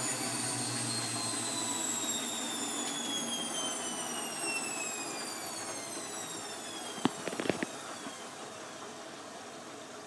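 Bosch WFF2000 washing machine filling with water for its first rinse: a steady rush of water into the drum with a high whine that slowly falls in pitch and fades, and a few sharp clicks about seven seconds in.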